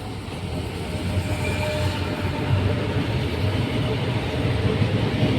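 Electric commuter train running by on the line, a dense rumble that grows louder over the first couple of seconds and then holds steady, with a faint whine above it.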